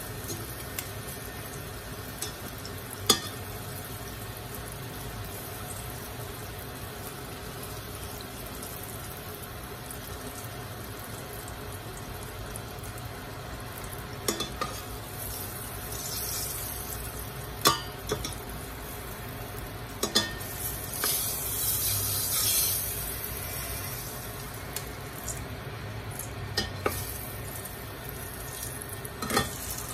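Hot oil sizzling steadily in a steel pot as snacks deep-fry, with several sharp clinks of metal tongs and a wire strainer against the pot. The sizzle hisses louder for a few seconds a little past the middle.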